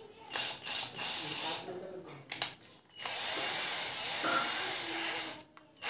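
A 12 V cordless drill/driver being handled, with a few knocks and clicks. About three seconds in its motor runs steadily for roughly two and a half seconds, then stops abruptly.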